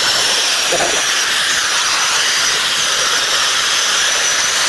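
A loud, steady hiss, like a jet of gas, with a faint high whine wavering above it. It begins abruptly just before this moment and does not let up.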